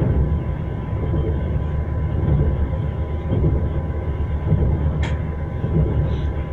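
Train wheels rolling on rails: a steady low rumble that swells and eases, with the knock of the wheels over the track and one short sharp click about five seconds in.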